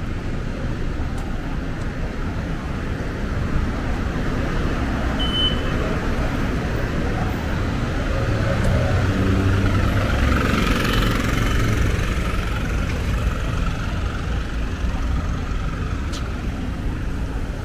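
Steady city street traffic noise with a low rumble, and a motor drone that swells for a few seconds in the middle and then fades.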